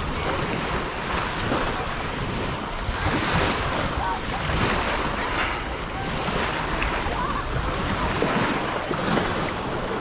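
Sea waves breaking and washing on a beach, swelling and easing every second or two, with wind buffeting the microphone.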